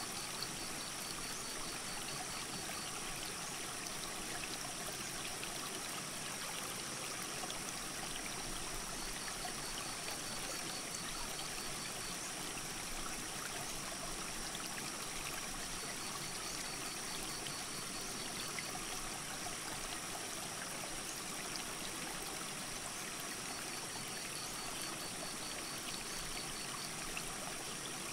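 Steady rush of a flowing mountain creek. A faint, high, pulsed trill comes and goes about every seven seconds, four times.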